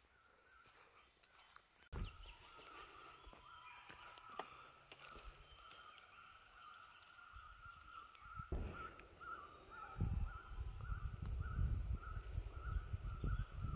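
Quiet forest ambience: a bird calling over and over in short chirps, settling to about two a second in the second half, over a steady high-pitched drone. A low rumbling noise joins about two-thirds of the way in and grows louder toward the end.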